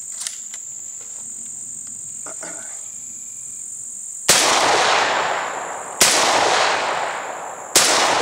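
Three shots from a Derya MK10 gas-operated 12-gauge automatic shotgun firing 3-inch magnum steel-shot shells. The shots come about a second and a half apart, starting about halfway in, and each has a long fading echo. Before them come a few small clicks as shells are loaded, over a steady high insect buzz.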